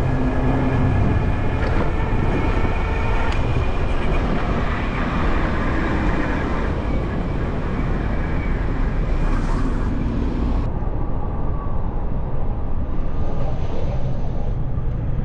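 Steady rush of wind and road noise from riding an e-bike in city traffic, heaviest in the low end.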